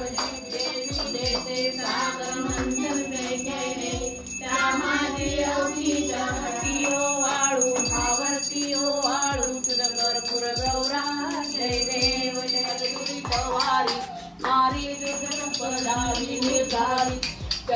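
Hindu devotional aarti song: voices singing a hymn over a rhythmic beat, with high bells ringing steadily through it.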